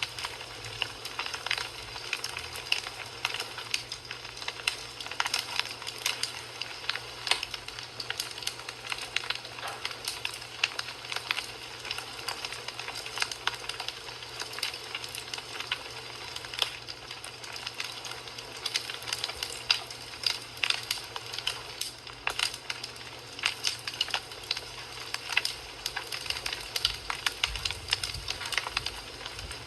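Fire crackling in a fireplace: a steady hiss with a dense run of small pops and snaps.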